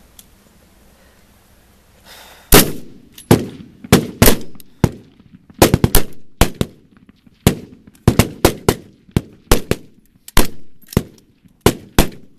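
A line of rifles firing a timed rapid-fire string: after a quiet start, shots begin about two and a half seconds in and continue irregularly from several shooters, some shots landing almost together.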